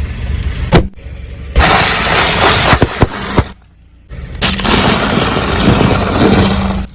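A car's tyre rolling over and crushing objects: a sharp crack just under a second in, then two long stretches of loud crunching and breaking with a short lull between them, over the steady hum of the car's engine.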